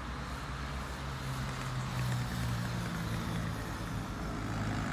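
Low, steady engine hum of a road vehicle, with a wash of outdoor noise, swelling slightly about two seconds in.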